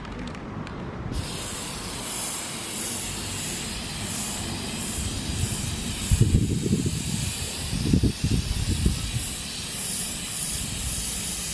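Aerosol can of spray adhesive hissing in long, steady passes as it coats a car headliner board and its fabric. The hiss starts about a second in and lets up briefly around six seconds. A few low rumbles come through in the middle.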